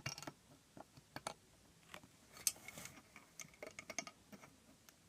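Faint, irregular small clicks and ticks of a plastic loom and hook being handled as the rubber bands are lifted off.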